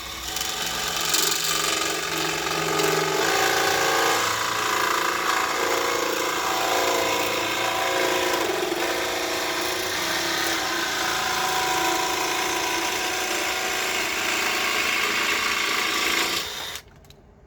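DeWalt cordless jigsaw running and cutting a 45-degree line through a board, a steady machine buzz whose pitch shifts as the blade works through the wood. It stops abruptly near the end.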